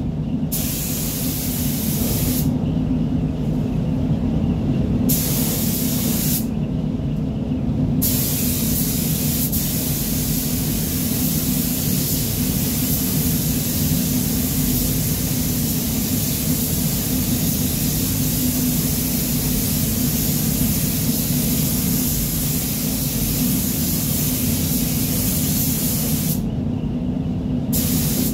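Compressed-air paint spray gun hissing steadily while a coat of paint is laid on car body panels. The hiss stops for a second or two about three times, between passes of the gun. A steady low hum runs underneath.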